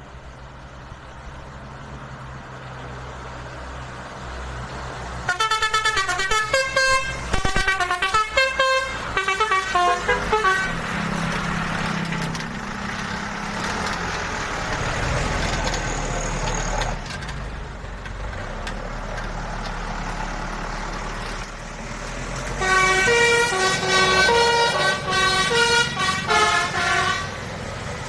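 Indonesian 'telolet' bus horn, a multi-tone musical horn, playing a quick tune of changing notes in two bursts of about five seconds each, over the low rumble of a bus engine.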